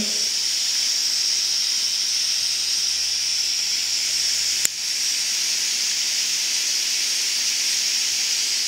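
Steady high-pitched hiss of background recording noise, with a single sharp click about four and a half seconds in.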